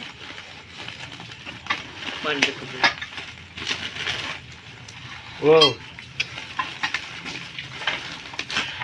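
Plastic bubble-wrap packaging being handled and torn open: irregular crinkling and crackling, with short scratchy rips.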